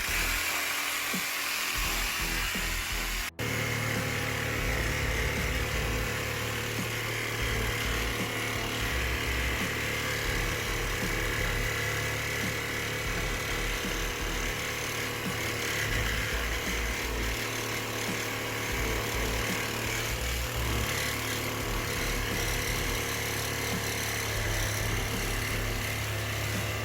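A power saw running steadily while cutting, likely through the cast iron drain pipe, with background music. The sound breaks off sharply about three seconds in and then carries on.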